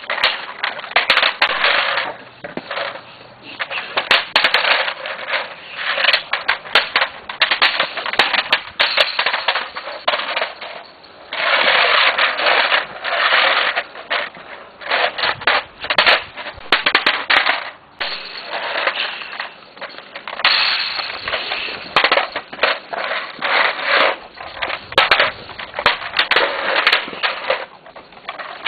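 Bullmastiff mouthing and pushing a hard plastic toy helicopter across a concrete floor: irregular, rapid clacks and knocks of plastic, with longer stretches of scraping now and then.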